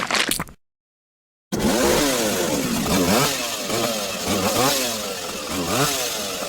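A few seconds of an engine revving up and down over and over, with a hiss behind it. It starts after a second of silence that follows the cut-off tail of a noisier sound.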